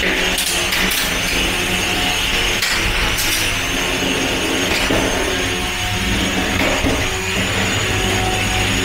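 Antweight combat robots fighting: the motor of a spinning weapon whines steadily while sharp clacks of hits and of the small plastic robots striking each other and the arena walls come about five times in the first five seconds.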